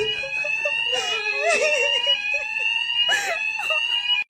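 Hotel fire alarm sounding one continuous high tone, with a woman's voice giving short cries and laughs over it.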